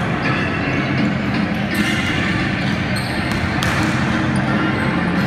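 Basketball game noise in a gym: a ball bouncing on the hardwood court, with shoes on the floor and players' voices.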